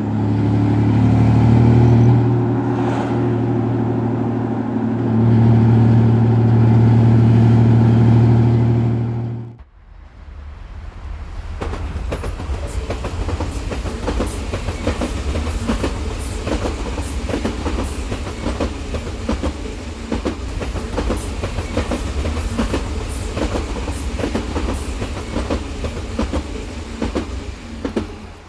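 Train sound in two parts. First a loud steady drone with a stack of tones, then after an abrupt cut about nine and a half seconds in, a train running with rapid, continuous clacking over a low rumble.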